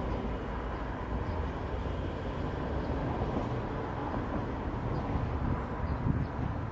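Steady low rumble of a steam locomotive drawing a train in the distance, with no distinct chuffs or whistle.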